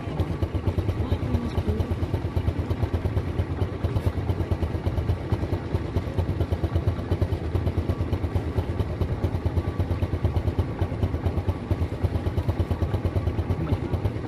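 An engine running steadily at idle, with a fast, even pulse and a low hum.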